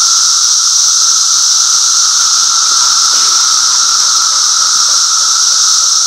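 Dense chorus of Brood X 17-year periodical cicadas calling for mates: a loud, continuous, high-pitched whine that envelops the listener, steady throughout.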